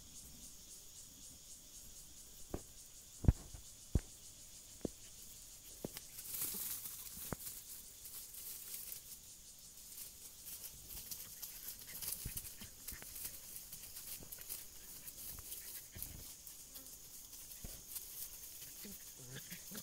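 Steady high-pitched insect chirring throughout, with about six sharp knocks in the first seven seconds, the loudest about three seconds in, and a couple of swells of rustling noise.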